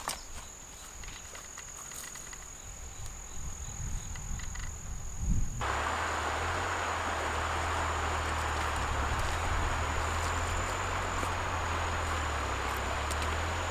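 A steady high insect drone over open-air ambience, with a few light footsteps in the first seconds. About five and a half seconds in, a louder steady rushing noise with a low rumble cuts in suddenly.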